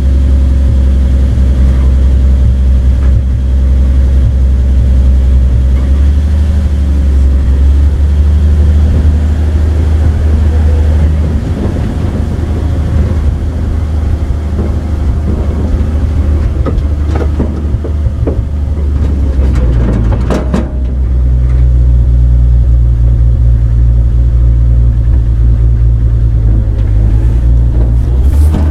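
A 1966 Chevrolet pickup truck's engine and road noise as the truck drives, heard from its open bed as a loud, steady low hum. The engine note shifts about eleven seconds in and again around twenty seconds. A few knocks and rattles come through in between.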